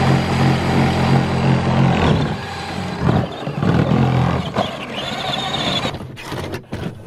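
Ride-on Peg Perego toy tractor's electric drive motor and gearbox running under power with a steady drone, then a rougher, uneven rumble of the plastic wheels over grass and the plywood ramp from about two seconds in.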